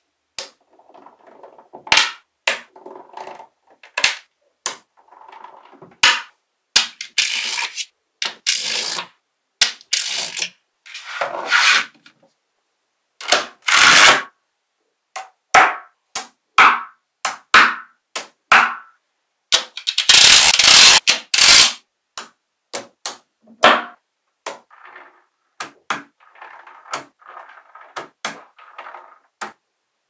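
Small magnetic balls clicking sharply and irregularly as short strips of them snap onto a block of balls, with a few longer rattles of a second or so, the loudest a little after the middle.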